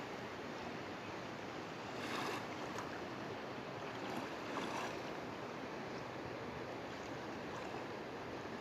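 Steady rushing of water, swelling briefly twice, about two seconds in and again about four seconds in.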